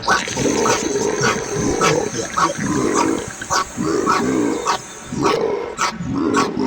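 Comic sound effect: a run of short animal-like vocal noises, about two a second, mixed with sharp clicks.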